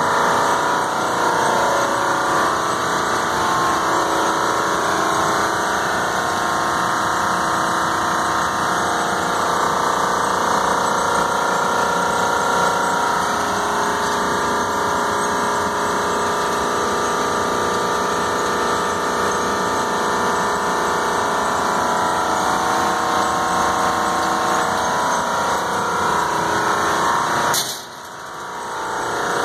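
Large commercial split-system air-conditioning equipment running: a loud, steady machine drone from its fans and motors, with several humming tones held throughout. Near the end a click is followed by a brief drop in level before the drone returns.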